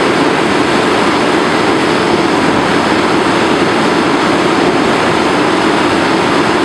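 Ladder fire truck running its pump at full flow: a steady loud rush from the diesel engine driving the fire pump and the heavy stream of water from the aerial ladder's monitor, as the aerial waterway is tested for its required flow and pressure.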